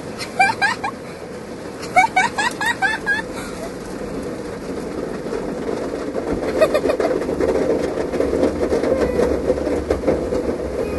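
Automated car-wash brushes and water spray washing over the car, heard from inside the cabin; the wash grows louder about halfway through. A small dog whines in quick high rising squeals, a short run at the start and a longer one about two seconds in.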